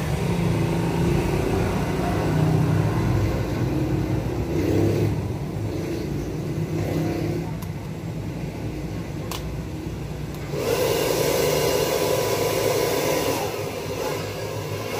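Handheld pet blow dryer running steadily while a wet Shih Tzu puppy is dried. It goes quieter for several seconds midway and comes back stronger about ten and a half seconds in.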